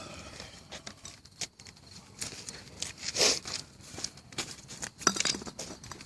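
Rustling and clicking from a bottle rocket being fiddled with and set upright in a bottle, with two short hissy bursts, the louder about three seconds in and another about five seconds in.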